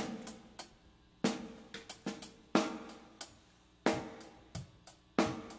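Drum kit tapped lightly between songs: a single drum hit about every second and a quarter, each ringing briefly, with a few lighter taps in between.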